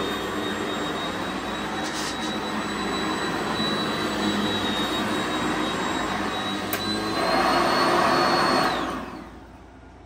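Sanitaire SC-679K commercial upright vacuum cleaner running on shag carpet with a steady high motor whine. About nine seconds in it is switched off and the whine falls away as the motor winds down.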